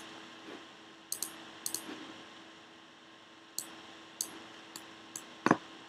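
Sparse clicks of a computer keyboard and mouse: a handful of sharp, separate taps spread over several seconds, over a faint steady hum. About five and a half seconds in comes one short, louder, duller thump.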